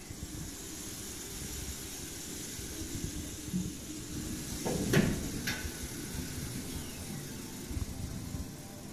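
Steady room hiss with a low rumble underneath, and two short sharp knocks about halfway through, half a second apart.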